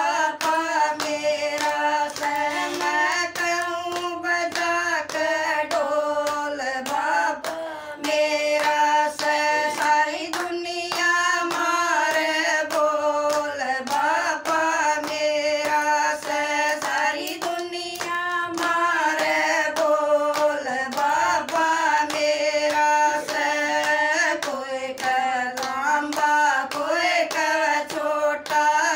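Women singing a devotional bhajan together, with steady hand clapping keeping time.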